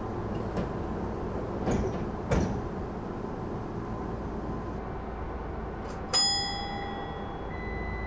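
Standing Tokyu 8500 series train: a steady low rumble from its equipment, with two thumps around two seconds in and a sharp bell-like ding about six seconds in that rings on for about a second.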